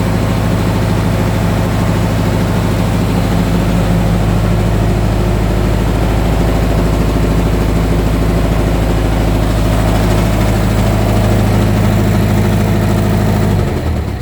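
Reconditioned Mitsubishi 4D32 four-cylinder diesel engine running steadily on a test run, then shut off near the end, its sound dying away quickly.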